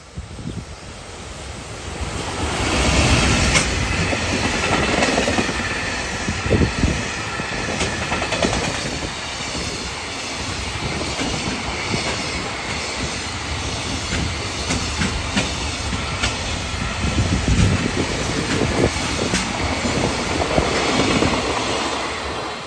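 A freight train hauled by a JR Freight EF210 electric locomotive passing close by: a long, steady rumble of wagons that builds about two seconds in, with regular clicks of wheels over rail joints, dropping away at the very end.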